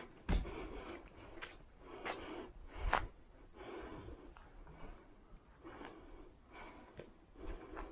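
Footsteps crunching on a gravel path at a steady walking pace, a crunch every half second or so.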